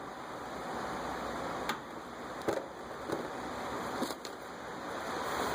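Steady background hiss with a few light clicks and knocks, about four in all, from tools and parts being handled.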